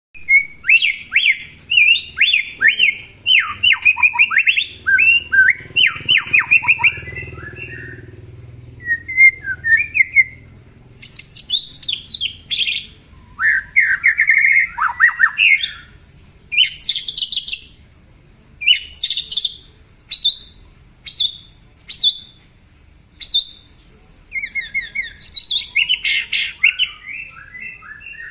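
White-rumped shama (murai batu) singing loudly: varied whistled phrases that sweep up and down, mixed with quick series of sharp chips, delivered in bursts with short pauses between them.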